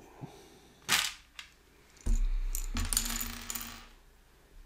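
Loose plastic Lego pieces clattering as they are handled. A sharp clack comes about a second in, then a longer rattle of pieces being stirred and shifted from about two seconds in until near four seconds.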